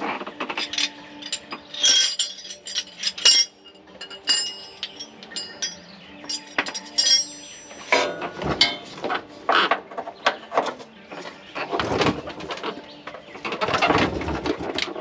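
Hand tools clinking, knocking and scraping against the steel of a van's rear axle and shock mount in irregular clanks. Birds chirp in the background.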